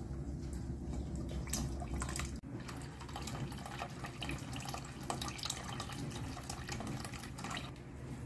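Liquid pouring from a jug into a stainless steel pot, splashing onto the contents. The sound breaks off briefly about two and a half seconds in, then hot water pours in.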